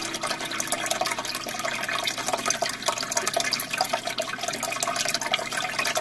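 Aquarium water bubbling: air from an airline rising in a stream of bubbles and popping at the surface, together with the filter's water flow. It is a steady, busy bubbling and trickling.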